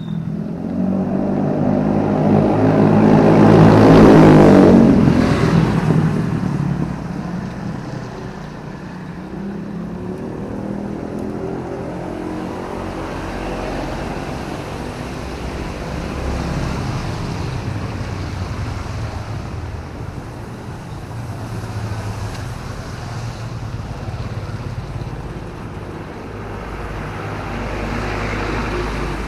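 A motor vehicle passes close by on a wet city road. Its engine grows loud to a peak about four seconds in, then fades by about seven seconds, leaving a steady background of traffic with lower engine hum.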